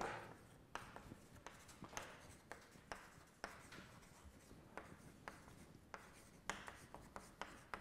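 Chalk writing on a chalkboard: a faint, irregular run of short taps and scratches as letters are written.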